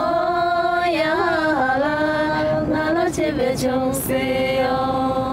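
Women's voices singing a slow melody together in long held notes, with a short ornamented run about a second in and the line stepping down in pitch after it. No instruments are heard.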